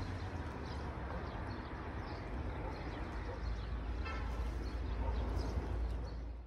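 Outdoor town street ambience: a steady low rumble with faint short high chirps over it.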